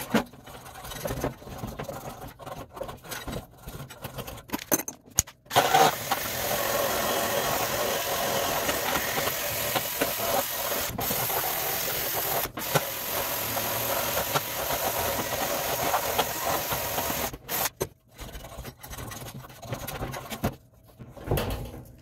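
A handheld power tool runs steadily for about twelve seconds, starting about five seconds in, as it cleans rust off a heat pump's blower motor shaft so the blower wheel can be slid off. Short clicks and knocks of metal parts being handled come before and after it.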